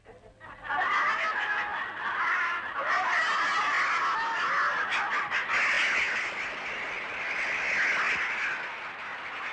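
Theatre audience applauding and shouting, breaking out about a second in and carrying on loudly.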